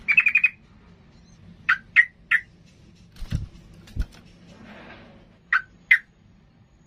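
Caged yellow-vented bulbul giving short, sharp call notes: a quick run of about five notes at the start, then single calls in a group of three and later a pair. Two low thumps come in between.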